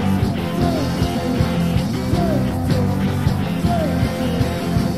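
Punk rock band playing an instrumental passage: distorted electric guitars, bass and drums driving along, with a short sliding note repeated over the top about every second.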